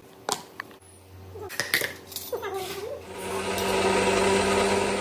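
Electric mixer grinder with a steel jar: a few clinks of the jar and lid being handled, then about three seconds in the motor starts and runs steadily, grinding boiled tomatoes with salt.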